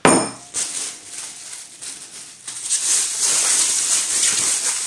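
An enamel pot set down on the table with a clink and a brief ring. From about two and a half seconds in, a plastic bag crinkles and rustles loudly as it is handled.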